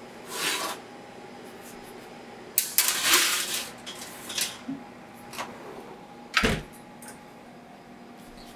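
Metal baking sheets clattering and scraping as they are slid onto wire oven racks, then an oven door shutting with a heavy thud about six seconds in.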